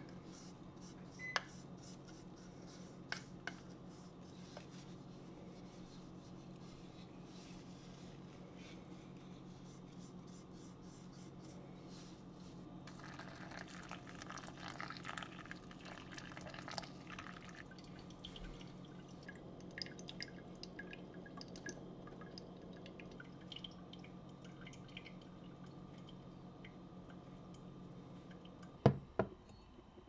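Ground coffee tipped into a Hario 02 cone dripper with a few light taps, then a thin stream of water poured over the grounds for a few seconds around the middle, followed by small drips and ticks as it brews. A steady low hum runs underneath, and a single sharp knock comes near the end.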